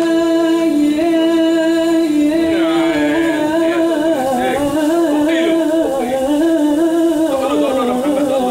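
Music: a melody of long held notes stepping up and down in pitch, with singing.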